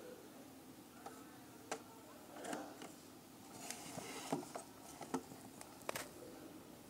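Faint handling noises: a few sharp clicks as a USB pen drive is pushed into a router's USB port, and short rustles of the plastic film wrapped around the router as it is picked up and turned by hand.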